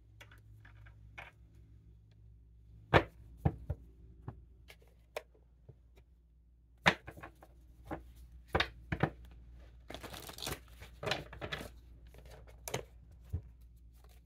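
Cards and paper being handled on a tabletop: a series of sharp taps and knocks, with a short rustle of paper about ten seconds in.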